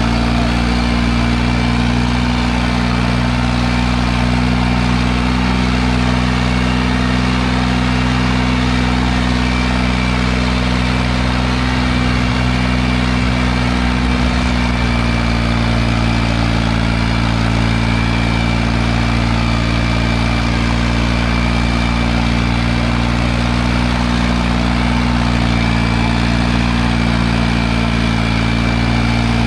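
Farmtrac tractor's diesel engine running steadily at an even speed, with a faint steady high whine above it.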